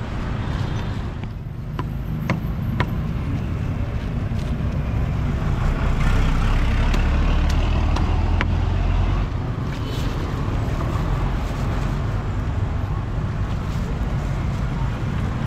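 Street traffic: a steady low rumble of passing vehicles that grows louder for a few seconds mid-way as something passes close, with a few sharp knocks near the start.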